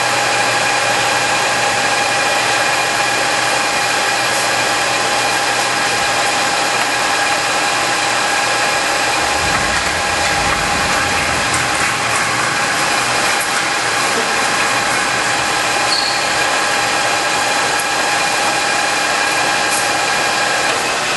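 Hwacheon HL-460 engine lathe running steadily with its spindle at about 1,000 RPM: a constant whine from the geared headstock, holding several steady tones at once.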